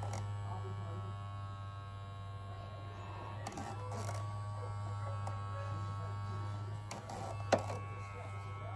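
Vitagoods battery-powered vibrating scalp massaging brush buzzing steadily as it is worked over the hair, with a few short clicks from handling, the sharpest about seven and a half seconds in.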